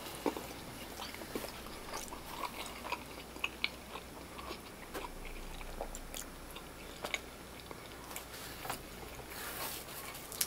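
Close-up chewing of a bite of chicken pesto pizza: scattered wet mouth clicks and soft crunches, with another bite taken near the end.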